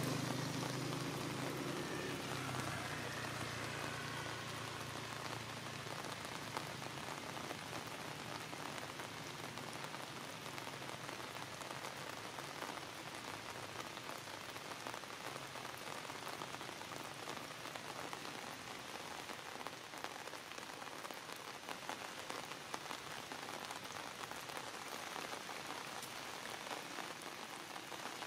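Steady rain falling: an even hiss flecked with many small drop ticks. A low hum fades away over the first few seconds.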